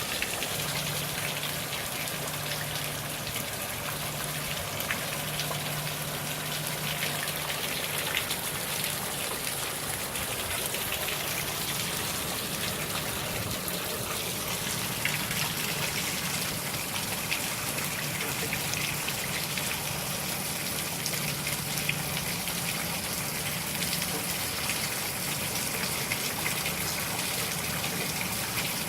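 Heavy hurricane rain falling steadily, with runoff water gushing.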